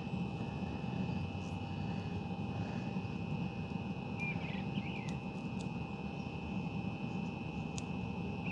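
Steady low rumble of outdoor background noise, with a thin steady high whine over it. A few faint chirps come about four seconds in.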